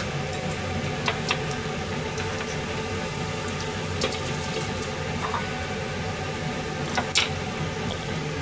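Steady sizzle of food deep-frying in a pot of oil on a gas stove, with a few light clicks of utensils about 1, 4 and 7 seconds in.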